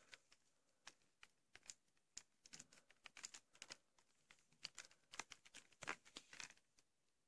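Faint, irregular clicks and crackles of a VHS tape's plastic clamshell case being handled and turned over in the hands.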